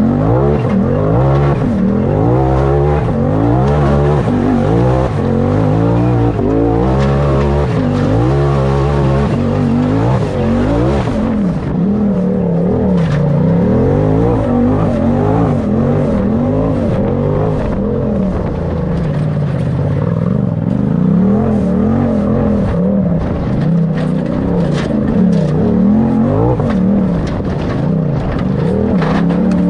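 Off-road race vehicle's engine revving up and down over and over as it drives over rough dirt and rock, with scattered sharp knocks and rattles from the bumps.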